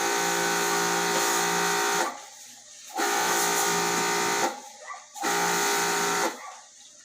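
Electric pressure washer running in three bursts with short pauses between, its motor starting and stopping as the trigger is squeezed and let go.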